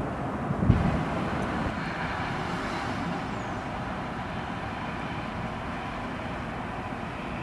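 Steady distant city traffic noise, a low even rumble, with one brief low thump about a second in.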